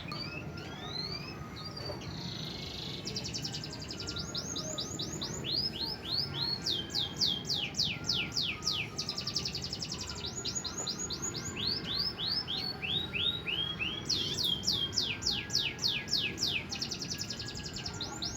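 Domestic canary singing a long, continuous song of rapid trills: fast runs of downward-sweeping notes that change speed and pitch from one phrase to the next.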